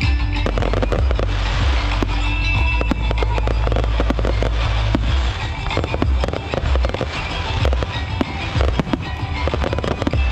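Aerial fireworks bursting in quick succession, with many sharp bangs and crackles, over music with a steady bass.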